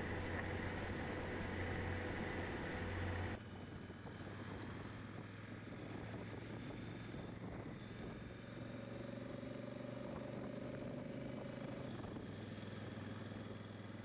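2019 Honda Africa Twin's parallel-twin engine running under way, mixed with wind noise on a helmet-mounted microphone. About three seconds in the sound drops abruptly to a quieter level and carries on steadily.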